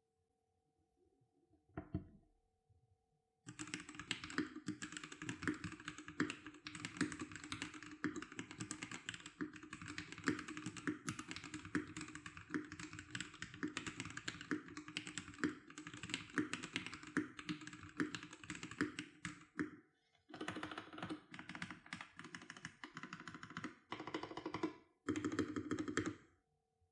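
MelGeek Mojo68 mechanical keyboard fitted with Gateron Pro Silver linear switches, typed on fast: a dense, even clatter of keystrokes. It starts with one lone keystroke, breaks off briefly about two-thirds of the way through, and ends in two more short bursts.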